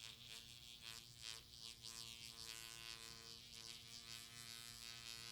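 IQOS heated-tobacco device's vibration motor buzzing steadily with a fast rattle over it, set off on its own by water damage while the device dries.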